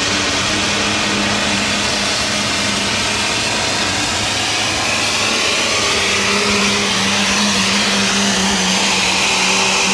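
Modified pulling tractor with twin supercharged engines running at full throttle while dragging the weight sled, loud and steady, holding one engine pitch.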